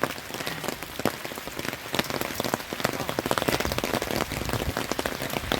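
Steady rain, with many sharp individual drops pattering on a nearby surface.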